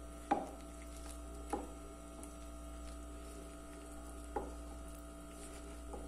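Wooden spoon stirring a stiff rice-flour dough in a ceramic bowl, knocking against the bowl three times, the first and loudest just after the start, over a steady background hum.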